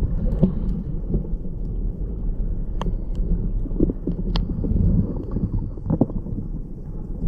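Muffled low rumble of sea water surging around an underwater camera, with a few sharp clicks along the way.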